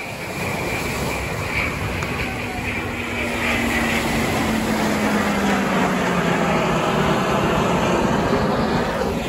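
Eurofighter Typhoon fighter jet's twin turbofan engines as it flies past, the jet noise growing louder through the pass, with a tone that slowly falls in pitch.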